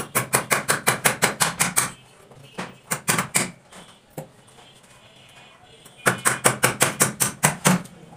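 Hand hammer striking rapidly with light, sharp blows, about seven a second, in three runs: a long one at the start, a short one after about two and a half seconds, and another long one about six seconds in.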